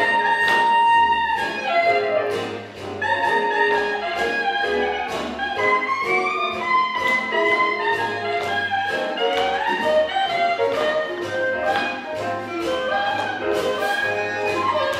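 Swing jazz music with brass and saxophones playing over a walking bass and a steady beat.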